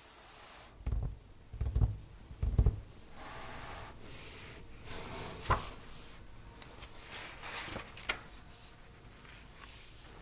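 Stiff paper cards handled by cotton-gloved hands: three soft thumps in the first three seconds, then rustling and sliding of paper with two light taps.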